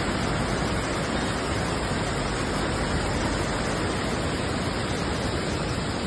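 Fast-flowing flash-flood water rushing across the ground, a steady, even noise.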